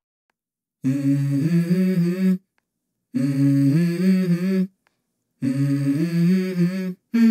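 Background music: a wordless humming vocal, three phrases of about a second and a half each, with short silences between them, and the start of a fourth near the end.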